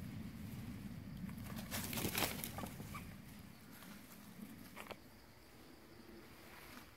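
Rustling and crackling in dry leaf litter over a low rumble, loudest about two seconds in, with a few clicks near five seconds. After that it drops to a faint steady insect drone.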